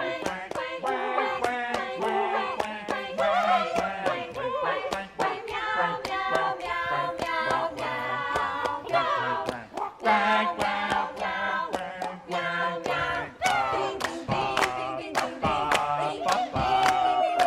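Several voices singing a cappella, over a quick, steady beat of sharp clicks.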